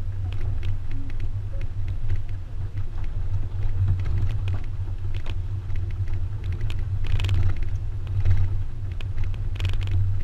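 Steady low rumble of a moving pickup truck's engine and road noise, heard from its open cargo bed, with occasional short knocks and rattles, the loudest about seven and ten seconds in.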